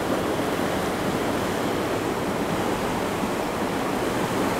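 Steady rush of a fast river running through whitewater rapids.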